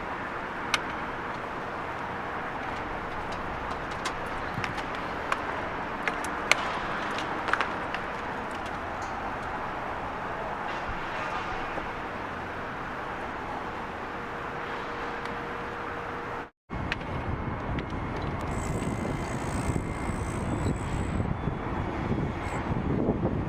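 Demolition-site noise: a steady machinery hum over a wash of city noise, with scattered sharp knocks and clicks. About two-thirds through the sound cuts briefly, then returns louder and rumbling.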